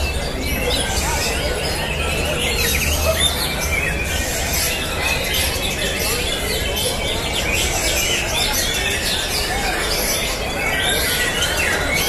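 Many caged songbirds singing at once at a songbird contest: a dense, steady chatter of short chirps, whistles and trills overlapping without pause.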